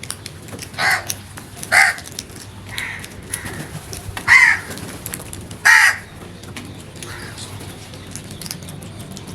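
Crow cawing: four loud caws and a couple of fainter ones over the first six seconds, then only faint background.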